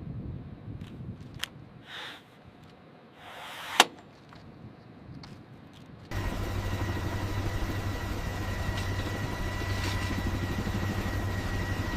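A quiet rumble with a few sharp clicks, then an abrupt switch about six seconds in to a helicopter's engine running steadily, a low hum with a steady high whine over it.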